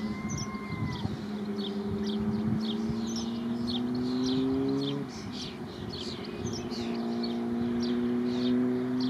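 Mallard ducklings peeping: many short, falling high chirps, several a second. Under them runs a louder low steady drone that slowly rises in pitch, breaks off about five seconds in and returns about two seconds later.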